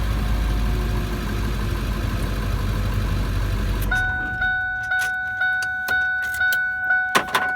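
A Ford 7.3 Power Stroke V8 turbo-diesel idling, started with the clutch safety switch bypassed. About four seconds in the engine shuts off and a dashboard warning chime starts dinging steadily, about twice a second, with a sharp click near the end.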